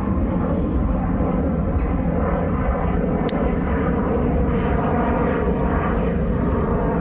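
An aeroplane flying over, its engine noise steady and even throughout.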